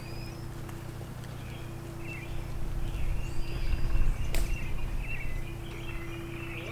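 Outdoor yard ambience: small birds chirping on and off over a steady low hum, with a low rumble that swells in the middle and fades, and a single sharp click near the loudest part.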